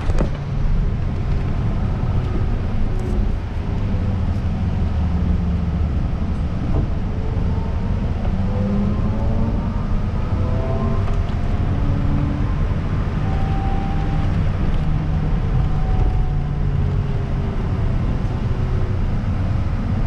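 Inside a city bus on the move: a steady low drone of the drivetrain with road noise under it, and a faint whine that rises in pitch several times as the bus speeds up.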